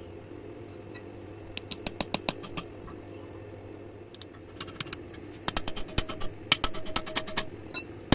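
Runs of rapid light metallic taps, a hammer driving a used HSS lathe tool bit used as a chisel into the bore of a steel barrel tube held in a vise, cutting a rifling groove. The taps come about a second and a half in, a few more near four seconds, then a longer, denser run with a ringing tone from about five and a half seconds, over a steady low hum.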